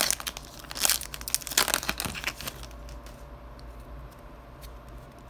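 Foil wrapper of a trading card pack being torn and peeled open, crinkling in several sharp bursts over the first two and a half seconds, then only faint rustles as the cards are handled.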